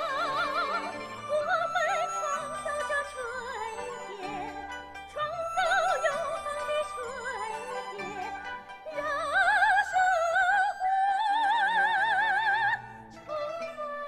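Female soprano singing a Chinese art song in an operatic style with wide vibrato, accompanied by a Chinese traditional orchestra. Near the end she holds a long high note, which breaks off about a second before the end.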